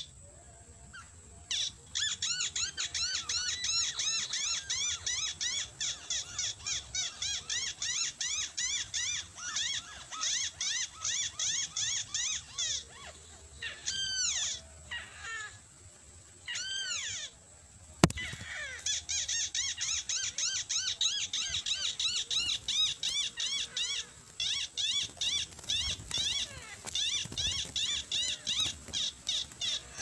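Crake calls: long runs of rapid, short arching whistled notes, broken by brief pauses, over a faint steady high whine. A single sharp click about eighteen seconds in.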